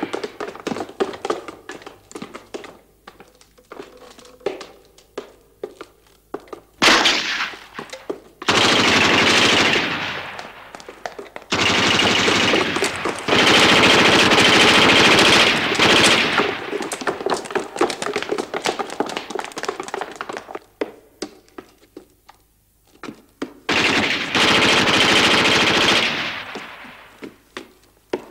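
Automatic gunfire from submachine guns: several long bursts, each running one to four seconds, with scattered single shots in between.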